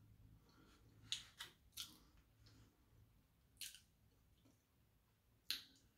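Quiet mouth sounds of chewing a bite of soft, cream-cheese-filled pumpkin spice muffin: five short, wet lip smacks spread over a few seconds, with near silence between them.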